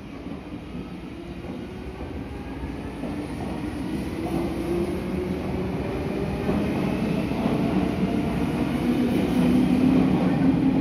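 Meitetsu 6500 series electric train pulling away from a station platform. The whine of its chopper-controlled traction motors rises in pitch while the running noise grows steadily louder as the train picks up speed.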